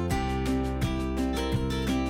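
Music with strummed acoustic guitar and a steady beat.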